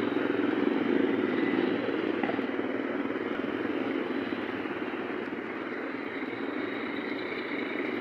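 Busy road traffic passing close by, with motorcycles and cars driving past in a steady rumble. It is loudest in the first two seconds and eases a little after that.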